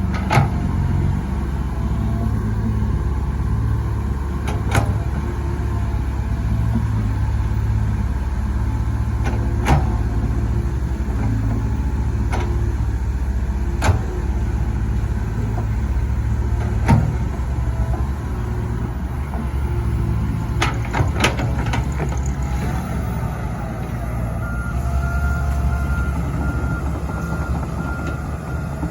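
Komatsu PC130 excavator's diesel engine running steadily under load while digging and loading, with sharp knocks every four or five seconds and a quick cluster of them about three-quarters of the way through. Near the end a reversing beeper starts beeping about twice a second.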